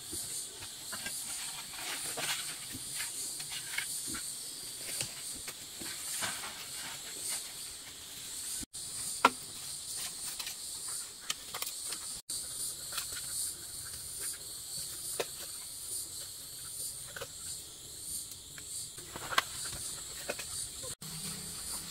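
A steady, high-pitched chorus of insects trilling and pulsing, with scattered sharp clicks and knocks from handling work, the loudest about nine seconds in. The sound cuts out for an instant three times.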